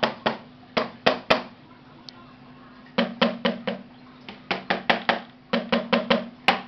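Wooden drumstick hitting a homemade electronic drum's cymbal pad with the drum module switched off, so only the dry, unamplified clicks and taps of the stick on the pad are heard. The strokes come in quick runs, with a pause of about a second and a half near the middle, over a steady faint hum.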